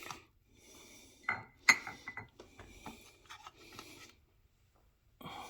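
A utensil scraping and clinking against a baking dish while manicotti and sauce are placed in it, with a couple of sharp clinks about a second and a half in among quieter rubbing.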